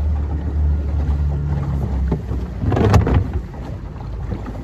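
A small boat's motor running with a steady low hum, which drops away about two seconds in. About three seconds in comes a short, loud rush of noise, from water against the hull or wind on the microphone.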